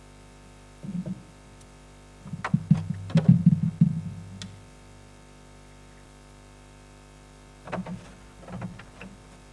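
Handling noise of light 3D-printed plastic parts on a tabletop: short bursts of knocking and rubbing, the longest and loudest lasting about two seconds, over a faint steady hum.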